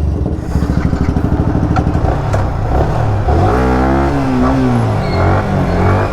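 Motorcycle engine running with a fast, even low pulse, then revved once about three and a half seconds in, the pitch rising and falling back to idle.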